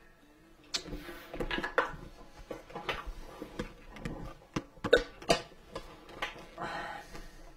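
Irregular knocks, clicks and rustling from objects being handled and set down at a workbench, the loudest knock about five seconds in.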